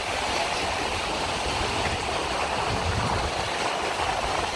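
Steady wash of ocean surf, an even hiss with a low, fluctuating rumble underneath.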